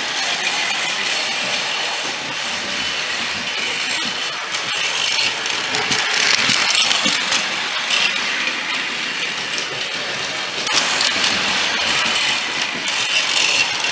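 Rail King battery-operated toy trains running on their track: a steady whirring and rattling of small motors and gears. It swells louder about halfway in and again near the end as an engine comes close.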